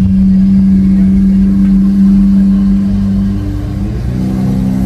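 Lamborghini Aventador SV Roadster's V12 through a Capristo exhaust, running loud at a steady engine note, easing off about three and a half seconds in and picking up again near the end.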